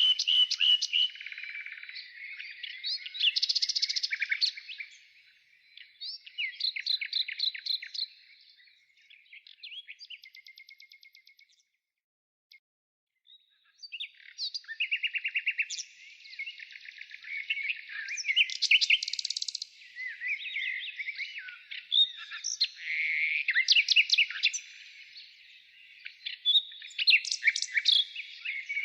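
Wild songbirds singing, a dense run of rapid chirps, trills and warbled phrases. The song stops for about a second and a half around twelve seconds in, then resumes.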